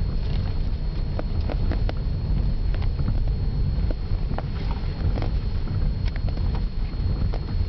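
Toyota Corolla driving, heard from inside the cabin: a steady low road rumble with scattered light knocks and taps at irregular intervals.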